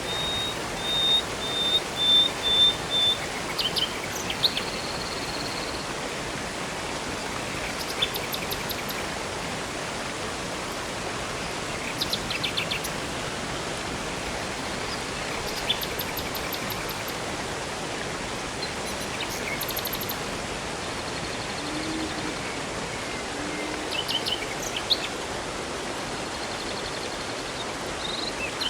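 Steady rushing of a river and waterfall, with songbirds calling intermittently over it: a run of about six short high notes in the first three seconds, then scattered bursts of quick chirps every few seconds.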